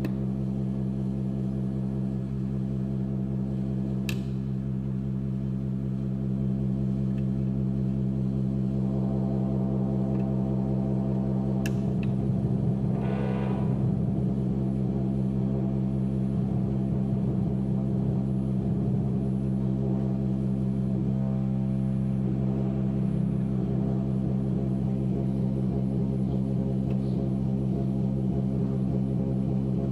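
Eurorack modular synthesizer playing a steady low drone with many overtones, like a ringing gong, its upper tone shifting and wavering around the middle. Two sharp clicks cut through, a few seconds in and about twelve seconds in.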